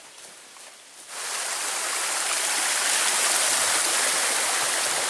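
A small woodland stream rushing and splashing over rocks, cutting in abruptly about a second in and running loud and steady.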